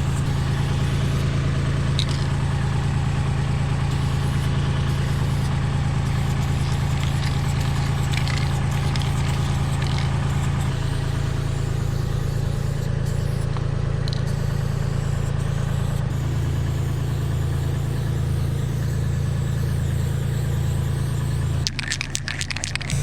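Engine of a basket boom lift running steadily, a constant low hum. About a second before the end the hum dips, and short hisses of spray paint from an aerosol can with a wide fat cap break in.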